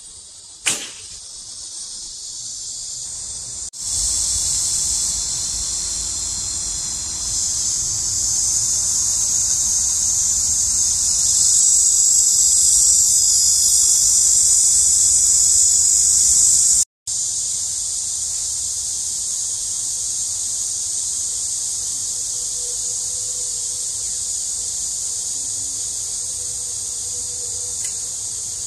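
Cicada chorus shrilling steadily at a high pitch. It gets louder a few seconds in and drops out for a moment past the middle. Just under a second in there is a single sharp snap as the horn bow is loosed.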